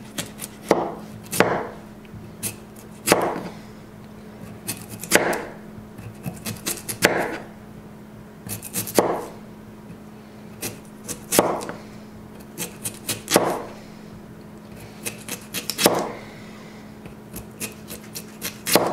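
Slicing raw potatoes into thick rounds with a TOPS XcEST Alpha survival knife: each stroke ends in a sharp knock of the blade on the cutting board, about one every two seconds, with lighter clicks in between.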